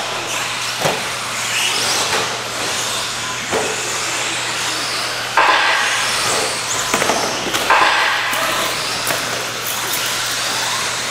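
Electric 1/10-scale RC stadium trucks with 13.5-turn brushless motors racing on a dirt track: a steady hissing mix of motor whine and tyres on dirt, with a few sharp knocks. It gets louder about five seconds in.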